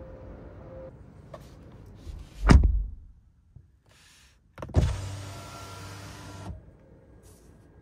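A heavy thud about two and a half seconds in, the rear door of a 2024 Hyundai Sonata shutting. Then the rear door's window switch clicks and the power window motor runs steadily for nearly two seconds, stopping with a soft bump as the glass reaches the end of its travel.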